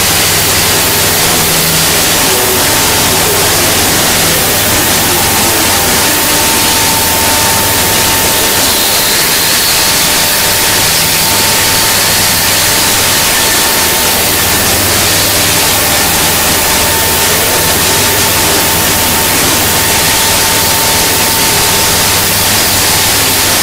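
CNC stone engraving router cutting a flat stone slab under a water-coolant spray: a loud, steady hiss of cutting and spray over a low hum, with a thin, steady spindle whine.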